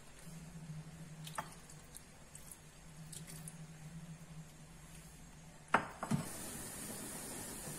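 Faint kitchen handling sounds as broth is poured from a glass bowl into a pot of stuffed grape leaves, with light clicks and two sharp clinks of glassware about six seconds in, followed by a steady hiss.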